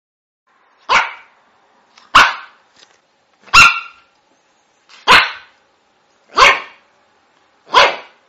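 A dog barking six times, single barks at an even pace of about one every 1.3 seconds.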